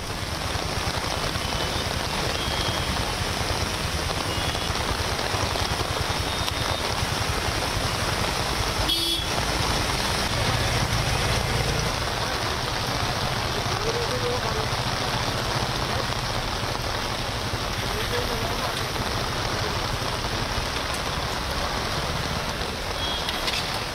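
Steady noise of heavy rain and road traffic on a waterlogged street, with a few short car-horn toots.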